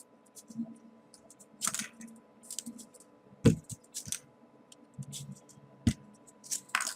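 Small folded paper origami units being handled and slotted into a 3D origami model: irregular light paper clicks and rustles, with two louder taps about three and a half and six seconds in.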